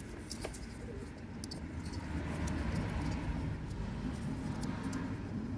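Low rustling and rubbing handling noise with a few faint clicks, from a hand working the yellow airbag connector at the steering wheel hub right against the microphone.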